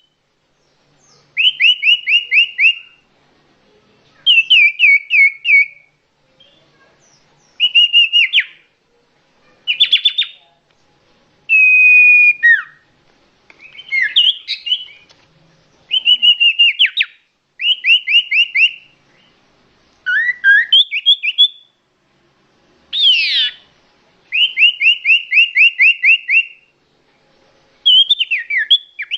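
Iora (cipoh) song, clear and loud: a string of whistled phrases, each a second or two long, most a quick run of repeated down-slurred notes, others single sweeping whistles, with short pauses between. It is a lure-call recording played to attract birds.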